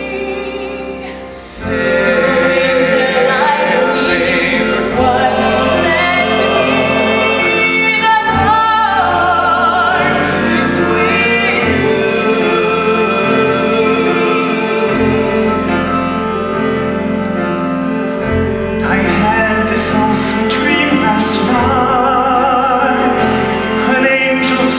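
Live song with a pit orchestra and solo voices singing with wide vibrato. The music thins out briefly at the start and comes back in full about a second and a half in.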